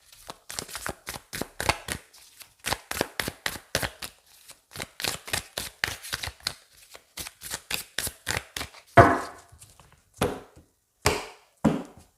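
A deck of tarot cards being shuffled by hand: a quick run of soft card clicks, several a second, then four louder knocks in the last few seconds as cards are tapped or laid down on the table.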